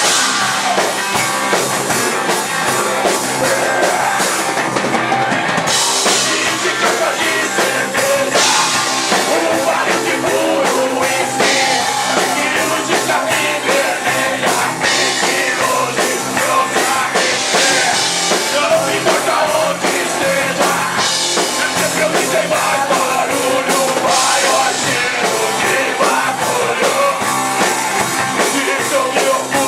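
Live rock band playing a song: a driving drum kit under guitars, with singing.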